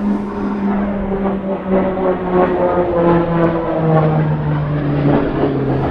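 A low-flying Royal Air Force training jet passing by: a steady engine drone that drops in pitch about three seconds in and again near the end as it goes past.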